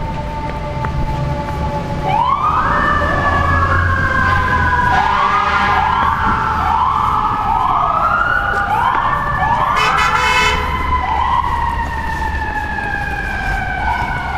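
Fire apparatus sirens wailing, several overlapping, each sweep rising quickly and then sliding down, over the low rumble of the trucks' engines.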